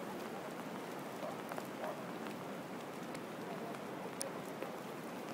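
Steady rain falling, with scattered sharp ticks of raindrops and one clearer tick about four seconds in.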